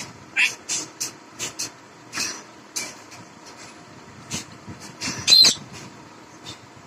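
Caged pet parakeet giving a run of short, sharp calls, two or three a second at first, with the loudest call about five seconds in.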